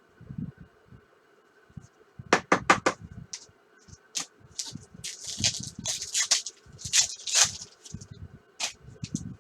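Baseball trading cards being handled and flipped through. A quick run of four sharp clicks comes a little over two seconds in, followed by several seconds of cards sliding and rustling against each other.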